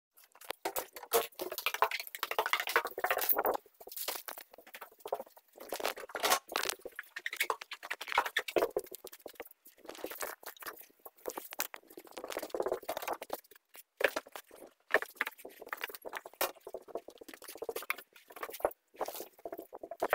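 Irregular rustling and scraping from clothes being handled in a bag and a phone being moved about in the hand, with short pauses between the bursts.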